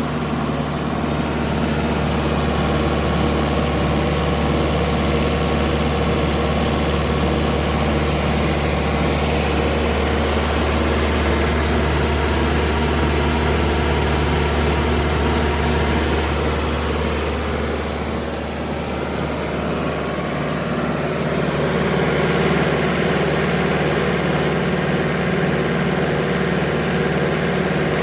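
Diesel engine of a Sullair 185DPQ 49 HP portable air compressor running steadily with a deep, even drone. It dips slightly about two-thirds of the way through and then comes back up.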